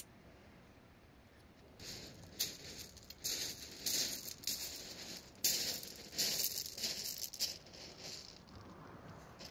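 Footsteps crunching on a shingle beach, with the pebbles grinding and rattling underfoot in a run of uneven, gritty crunches that start about two seconds in and fade out near the end.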